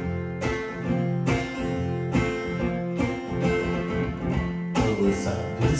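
Instrumental passage of a live song: a guitar strumming chords in a steady rhythm, about two strokes a second, with no singing.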